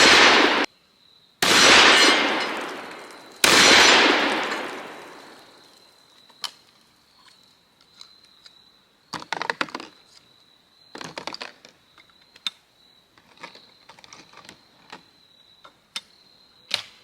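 Two shots from a Stoeger coach gun, a side-by-side double-barrel shotgun, about two seconds apart, each with a long echoing tail. They are followed by scattered metallic clicks and clatter, the sound of the gun being broken open and handled.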